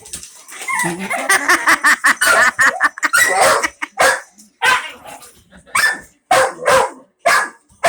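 Dog barking at a remote-control car: a close-packed run of barks for the first few seconds, then single sharp barks about every half second.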